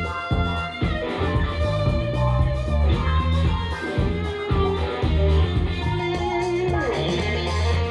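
Guitar-led music with a strong bass line, played through desktop speakers and picked up by a microphone as a speaker sound test.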